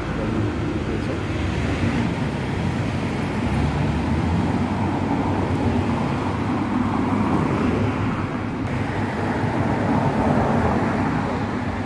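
Steady city street noise with road traffic: cars passing and a general urban hum.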